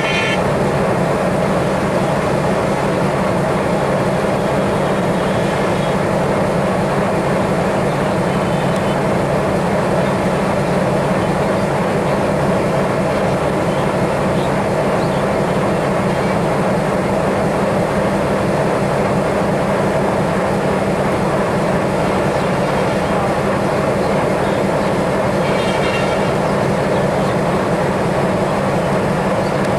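Steady, unchanging drone of a diesel locomotive engine with train running noise, loud throughout.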